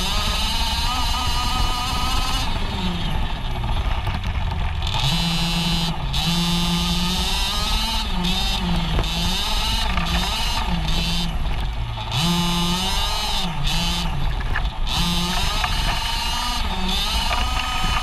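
26cc two-stroke gas engine of a Losi 5ive-T 1/5-scale RC truck, heard close up from a camera mounted on the truck, revving up and down with the throttle as it drives. It is held at high revs for a second or so several times, with quick blips in between.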